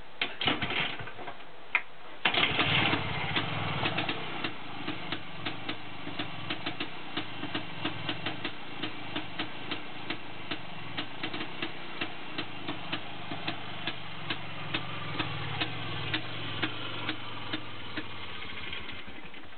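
1970 IZh Planeta-2's single-cylinder two-stroke engine cold-started on the kickstarter after standing unused: a couple of kicks, the engine catching about two seconds in, then running with a regular tick about three times a second. The engine note fades near the end.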